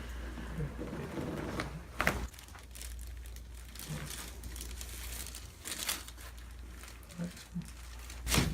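Crinkling and rustling with a few sharp clicks, the loudest near the end, over a steady low hum.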